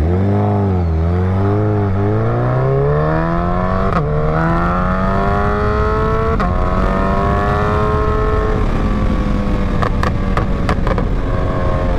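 A 2023 Suzuki Hayabusa's 1340 cc inline-four pulls away from a stop and accelerates, its pitch climbing, with two quick upshifts along the way, then settles into a steady cruise. Heard from the rider's seat, with wind noise on the microphone.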